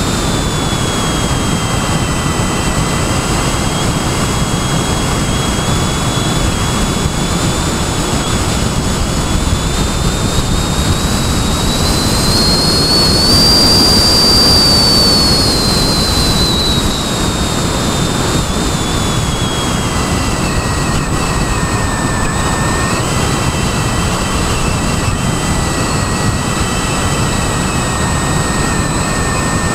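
Model airplane's motor and propeller, heard from on board, as a high whine over a steady rush of wind. The whine rises in pitch about halfway through, during a low pass along the runway, then falls back.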